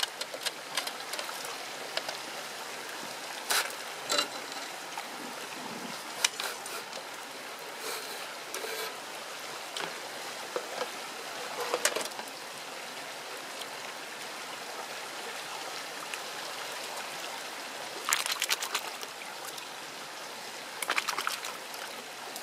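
Shallow stream water trickling steadily, with intermittent knocks and clatters as a metal mini sluice and its green Dream Mat are handled and rinsed over a plastic tub of water. This is the clean-out of the sluice's gold concentrate.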